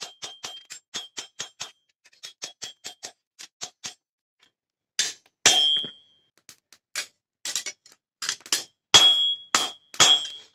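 Hammer blows on a steel knife blank, cut from a plough disc, lying on an anvil, straightening the bend of the disc out of the blade. At first come quick light taps, about four a second. From about five seconds in the blows get heavier and further apart, and several of them ring.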